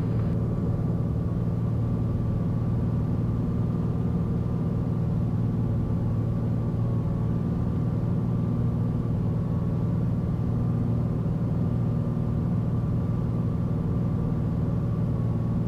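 Piper Malibu PA-46-310P's turbocharged six-cylinder Continental engine and propeller running at a steady drone in the cockpit on final approach, the propeller set full forward for landing.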